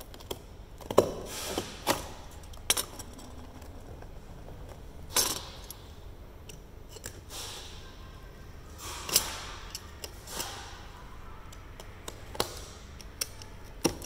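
Utility knife blade scraping and slicing through clear packing tape on a cardboard box: an irregular string of short scrapes and sharp clicks.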